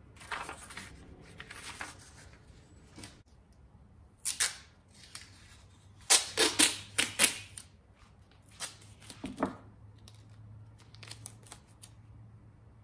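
Masking tape pulled off the roll in a quick run of short rips about six seconds in, with softer rustles and a few light taps of plywood panels being handled and the tape pressed down.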